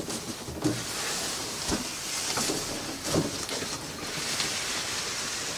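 Rustling and handling of a cardboard box and its packaging, with a few light knocks.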